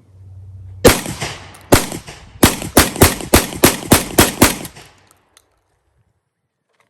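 SDS Lynx 12-gauge semi-automatic shotgun fired ten times in a rapid string: two shots about a second apart, then the rest at about three a second. It stops just before the halfway point.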